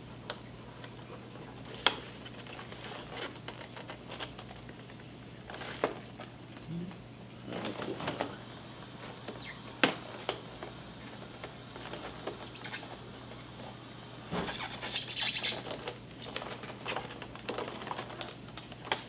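Cardboard toy box being cut open along its base with a blade and handled on a tabletop: scattered sharp clicks and scrapes, with longer rustling bursts from the plastic packaging about eight seconds in and again about two-thirds through. A faint steady hum underneath.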